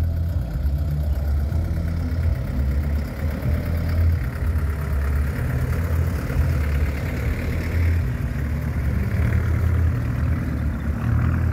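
Engines of modified off-road 4x4s running at low speed as they pull away past the microphone one after another over dirt, a deep uneven rumble throughout.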